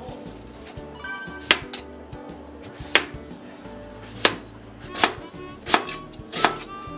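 A kitchen knife chopping vegetables on a cutting board: about seven sharp, irregularly spaced strokes over background music.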